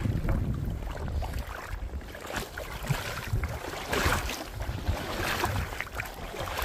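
Wind buffeting the microphone, a low, uneven rumble.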